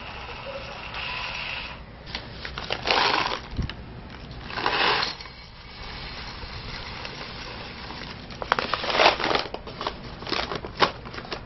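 Green coffee beans poured into a ceramic mug, rattling in three short pours of about a second each, then a few separate clicks of single beans dropping near the end.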